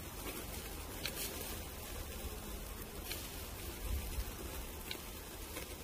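Meat sizzling over a charcoal grill as a steady hiss, with a few faint clicks and pops as tongs turn the pieces on the wire grate.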